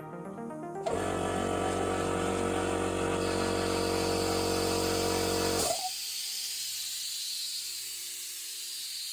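12-volt solenoid valve buzzing steadily as it chatters open and shut: the pressure switch drops out each time the valve opens, so the valve cycles rapidly. The buzz cuts off abruptly after about five seconds and a steady hiss of escaping pressure follows.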